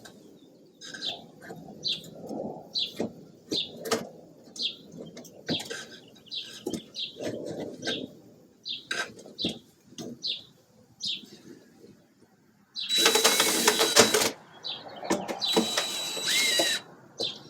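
A small bird chirps over and over in short falling notes while parts are handled with light clatter. About 13 seconds in a power drill runs with a steady whine for just over a second, then again for about two seconds, driving in the screws that fix the wheel.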